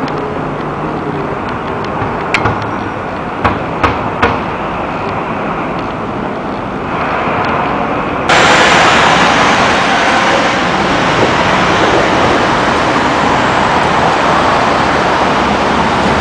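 City street traffic noise, a steady rush of passing cars. A few sharp knocks come two to four seconds in, and about halfway through the noise suddenly becomes louder and brighter and stays so.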